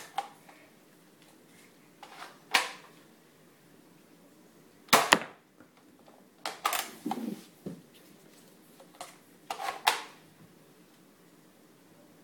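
Air Warriors Predator toy foam-dart blaster being primed and fired: sharp plastic snaps and clacks in about four short clusters, the loudest about five seconds in.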